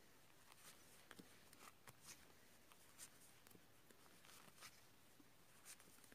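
Near silence with faint, irregular small clicks and rubs of wooden knitting needles as stitches are knitted.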